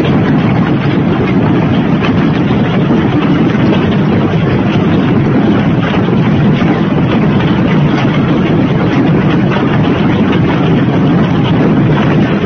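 Heavy hailstorm: large hailstones pelting down in a loud, dense, unbroken clatter over a strong wind.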